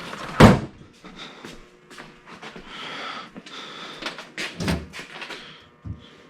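Metal knocks and clicks from working a newly installed trunk lock and latch: a loud knock about half a second in, a cluster of clicks just before five seconds, and a thump near the end.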